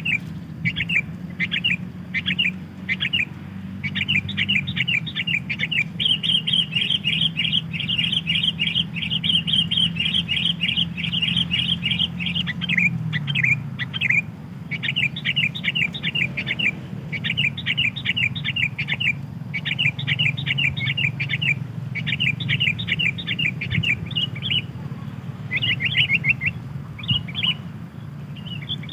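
Sooty-headed bulbul (kutilang) calls played as a lure for wild bulbuls: quick series of short chirps, with one long fast trill from about six to thirteen seconds in. A steady low hum runs underneath.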